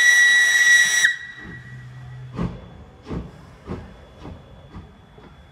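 Steam locomotive whistle blowing one steady high note that cuts off about a second in. Then comes a hiss, and from about halfway through, the slow exhaust chuffs of the engine pulling away, about one every 0.6 seconds.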